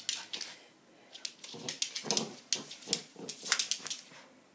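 A small fluffy dog rolling and rubbing its face and body along a wooden floor to dry itself after a bath: a string of short scuffs and clicks from fur and claws on the boards.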